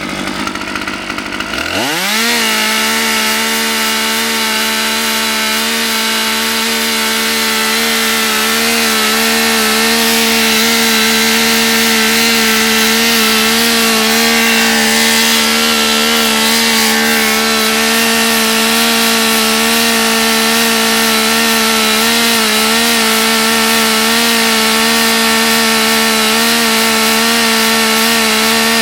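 Husqvarna T540 XP top-handle two-stroke chainsaw revving up over the first two seconds, then held at full throttle, running steadily at high revs.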